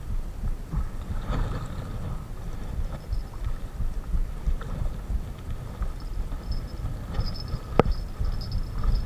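Irregular low rumble of wind and handling noise on a body-worn camera, with one sharp click near the end.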